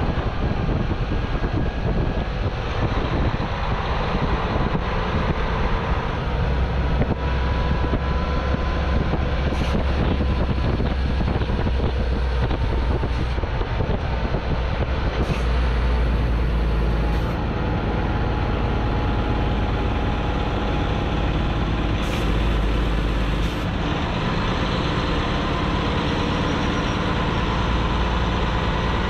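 Diesel engine of a Hino tractor unit pulling a chip trailer, running steadily under way with road and wind noise. The engine pitch drifts gently up and down with speed. A few short hisses stand out in the middle.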